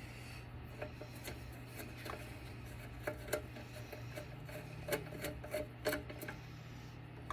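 Phillips screwdriver backing out the screws that hold a battery backup's power board: scattered light metallic clicks and scrapes at an irregular pace.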